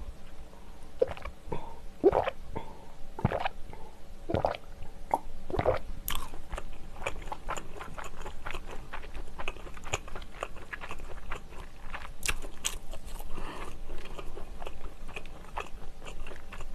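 Close-miked eating sounds: several loud gulps of milk swallowed from a glass about a second apart in the first few seconds, then chewing of sausage-onion bread with many small wet mouth clicks.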